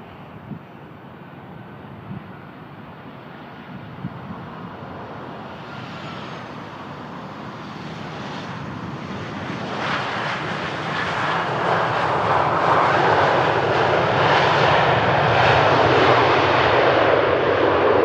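Boeing 737 jet airliner landing: its engine noise builds steadily on approach and grows loud about halfway through, after touchdown, staying loud as it rolls out along the runway.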